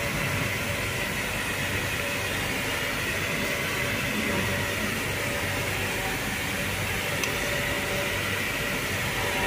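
Steady mechanical hum and hiss with a faint constant whine, unchanging throughout.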